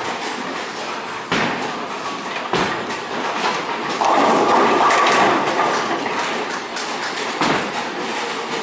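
Bowling ball rolling down the lane with a low rumble, then crashing into the pins about four seconds in, the pins clattering and ringing for a couple of seconds. A few sharp knocks sound from the alley around it.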